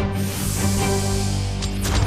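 Background music from a cartoon soundtrack, with steady sustained low notes.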